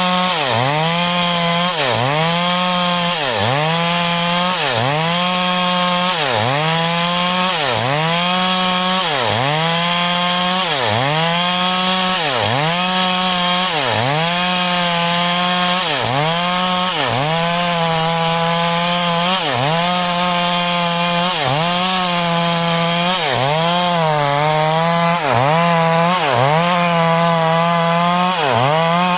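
Chainsaw ripping a hardwood heartwood log lengthwise into frame stock, running at high revs. The engine bogs down and picks up again about once a second as the bar is rocked into the cut.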